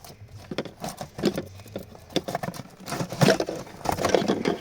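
Hands working plastic parts during a cabin filter change: irregular scraping, rustling and clicking, busiest about three seconds in.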